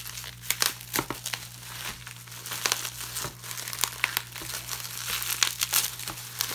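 Shipping packaging crinkled and torn open by hand, without scissors: a rapid run of sharp crackles and rips.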